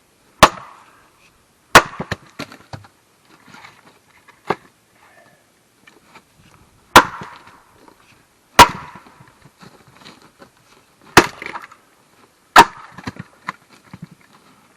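An axe striking a firewood block to split it by the hit-and-twist method: six sharp, loud blows in three pairs about a second and a half apart, with lighter knocks of wood between them.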